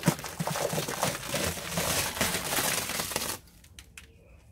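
Plastic sheeting crinkling and crackling as a plastic-lined form panel is peeled away from the side of a freshly cast cement planter. The noise stops suddenly about three seconds in.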